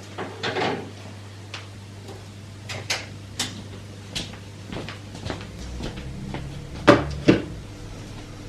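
Cupboard doors and drawers being opened and shut with scattered knocks and clatter, the two sharpest knocks close together about seven seconds in. A low steady hum sets in about five seconds in.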